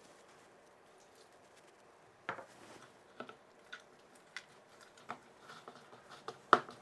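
Hands kneading a potato dough in a plastic bowl. Soft squishing and a series of short knocks begin about two seconds in and come more often toward the end, with the loudest knock near the end.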